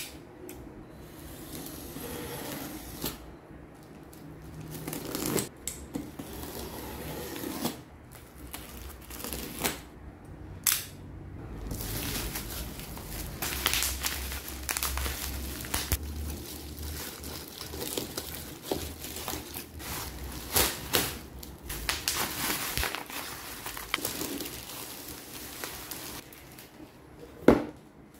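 Packaging being handled: irregular rustling and crinkling with scattered sharp clicks and knocks.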